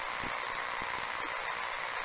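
Steady static hiss, strongest in the middle of the range, with faint scattered crackles.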